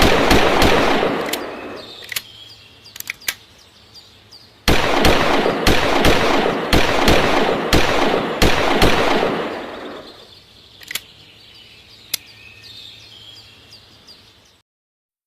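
Rapid gunfire from a .45-calibre handgun in two long strings of shots, the first ending about two seconds in and the second running from about five to nine seconds, each trailing off into echo. A few single sharp cracks fall in the gaps, and the sound cuts off near the end.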